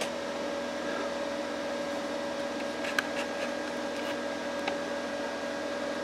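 Desktop PC's fans running flat out at power-on: a steady, crazy loud whir with a constant hum under it, and one short click about halfway. The fans are at full speed, which the owner puts down to the original 3-pin fans on a 4-pin motherboard with fan control.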